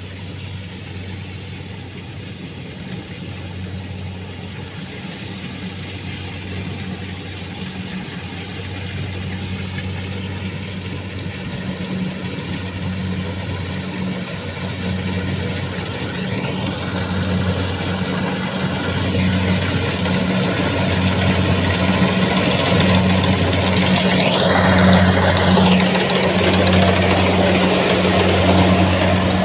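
Kubota rice combine harvester running under load as it cuts. Its steady engine drone grows louder as the machine comes closer. Twice a brief high sliding tone sounds over it, once around the middle and once, louder, near the end.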